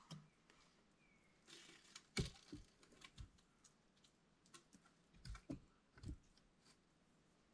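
Faint, irregular knocks and clicks of dry wooden branches being laid one by one across a tree platform, with about half a dozen heavier wooden thuds among lighter ticks.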